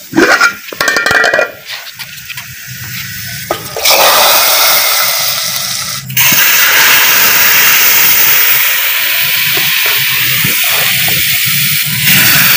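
Hot ghee tadka of fried garlic, dried red chillies and cumin poured from a frying pan into a pot of cooked dal, hissing and sizzling loudly. A few clatters of the pan come first; the loud hiss starts about four seconds in, dips briefly and surges again.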